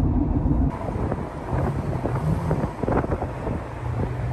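Wind buffeting the microphone over the low, steady rumble of a vehicle, with a few short knocks. The sound changes abruptly about a second in.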